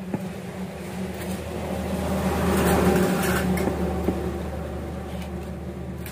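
A motor engine's steady hum, swelling to its loudest about halfway through and easing off again, with a few faint ticks.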